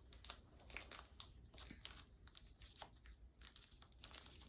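Faint handling sounds of unboxing: scattered small clicks and light rustling of packaging and camera accessories.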